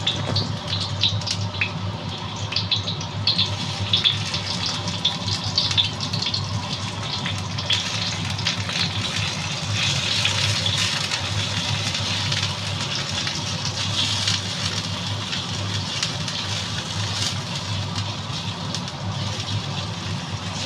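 Garlic and shallot pieces sizzling and crackling in a little hot oil in a wok, stirred now and then with a wooden spatula, over a steady low hum.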